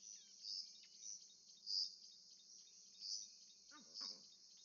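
Faint nature ambience of insects chirping in a high, even pulse about twice a second, with a few soft bird chirps and a brief faint call a little before the end.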